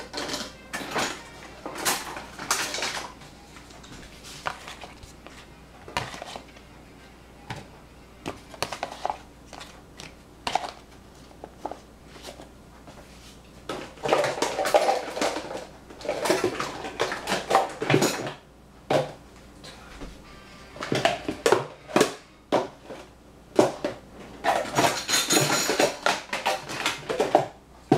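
Dishes and cutlery clattering: irregular knocks, clinks and scrapes of kitchenware being handled, busier in the second half.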